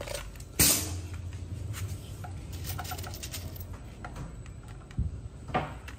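Workshop handling noises: a sharp knock about half a second in, a low hum for a couple of seconds after it, and two lighter knocks near the end as tools are picked up.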